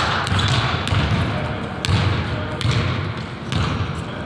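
A basketball being dribbled on a hardwood gym floor: a run of unevenly spaced bounces.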